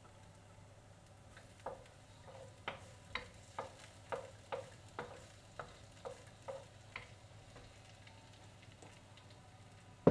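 Wooden spoon stirring onions and garlic in a metal wok, knocking and scraping against the pan about twice a second for several seconds over a faint sizzle of oil. One louder knock right at the end.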